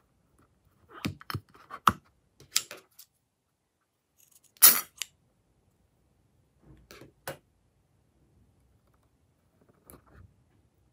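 Scattered short snips and clicks as a slime-filled rubber balloon is handled and cut open, likely with scissors; the loudest comes a little before halfway.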